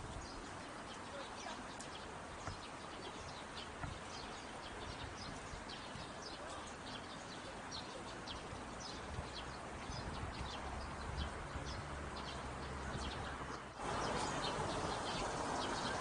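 Small birds chirping over a steady outdoor hiss. Near the end the background hiss abruptly gets louder.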